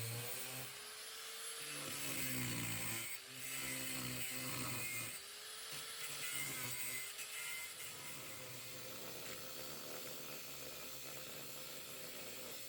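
Handheld electric power tool working on the rusted rocker panel, its motor pitch rising and falling in several sweeps over the first eight seconds, then running steadier and a little quieter.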